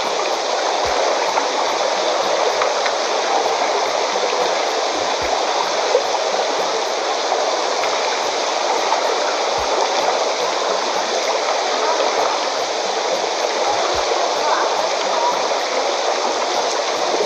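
Steady, even rushing noise like running water: the ambience of an indoor diving pool.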